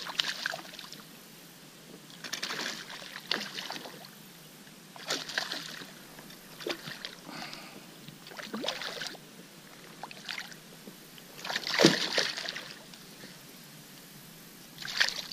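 A hooked bass thrashing and splashing at the water's surface beside a kayak, in repeated short bursts, the biggest splash about twelve seconds in.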